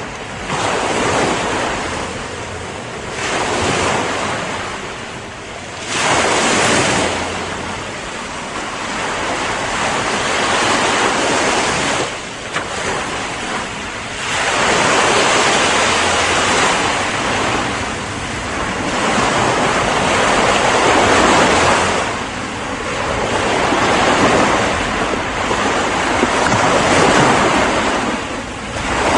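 Ocean surf: waves breaking and washing in, the rush of water swelling and ebbing every few seconds.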